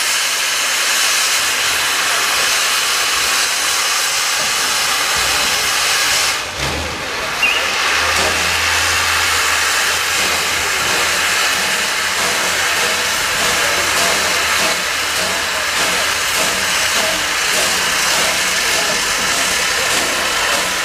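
Steam locomotive standing still and venting steam with a loud, steady hiss; the hiss dips briefly about six seconds in.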